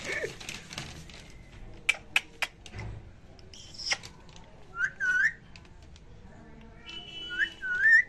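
Whistling in short curved, swooping notes, one pair about five seconds in and another near the end, with three sharp clicks around two seconds in.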